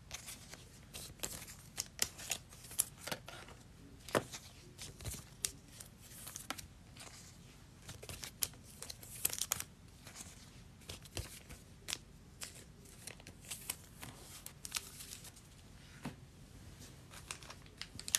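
Faint, scattered rustling and clicking of trading cards and pack wrappers being handled, with a brief louder rustle about halfway through.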